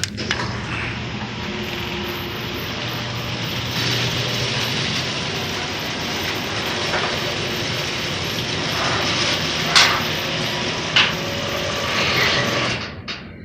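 Freshly repaired garage door running through a full cycle on its opener, a steady mechanical rattle of the drive and rollers. It starts with a click, gives two sharp knocks near the end, and stops after about thirteen seconds. Its repairer says it is running perfectly.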